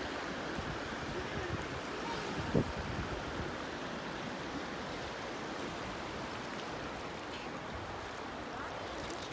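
Steady rushing of a fast-flowing, flood-swollen river, with a brief knock about two and a half seconds in.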